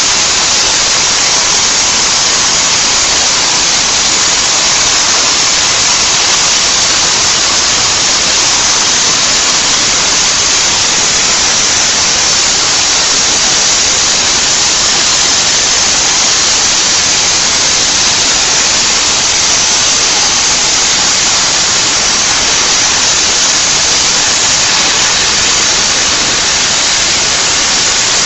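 Gantry CNC cutting machine at work, giving a loud, steady hiss with no pitch or rhythm that stays the same throughout.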